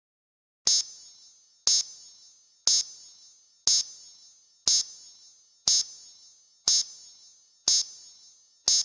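Countdown-leader sound effect: a short, high beep once a second, nine times in a row, each dying away quickly.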